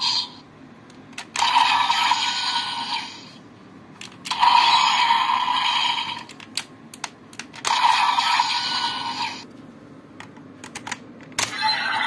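Three bursts of electronic sound effects from a toy's small speaker, each about two seconds long. Sharp plastic clicks from the toy being handled fall in the gaps between them.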